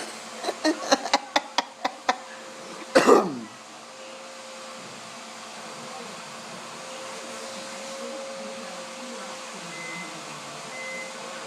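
Dog licking a sliding glass door: a quick run of short, sharp lick sounds of tongue on glass in the first two seconds, then one louder drawn-out sound falling in pitch about three seconds in.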